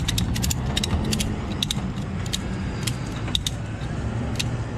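Ratchet tie-down strap being cranked tight: quick runs of sharp ratcheting clicks, coming in irregular bursts with short pauses between them.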